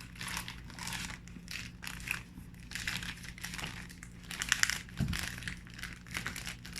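Packaging crinkling and rustling as items are handled and pulled out of a parcel, with a cluster of sharper crackles about four and a half seconds in. A low steady hum runs underneath.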